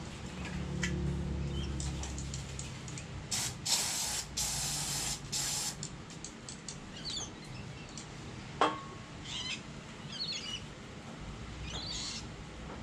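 Aerosol spray can hissing in four short bursts, a few seconds in, as an engine's main bearing cap is sprayed clean. Later comes a single sharp metallic clink, with birds chirping faintly.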